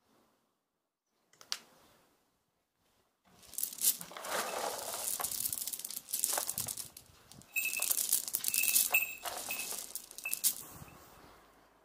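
Homemade sawdust pellets clattering as a handful is scooped from a bucket of pellets and let trickle back in. The rattling starts about three seconds in and tails off near the end.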